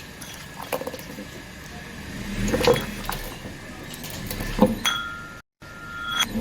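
A car's tyres rolling over and crushing objects: several sharp cracks and crunches over a low engine hum, with a steady high beep in the last second and a half.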